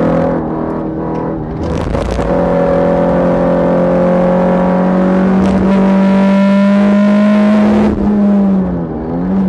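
Škoda Felicia 1.3 MPI inline-four engine heard from inside the car, running hard on track. After a brief noisy break about two seconds in, the revs climb slowly and steadily for about six seconds, then fall away near the end, dipping and rising once more.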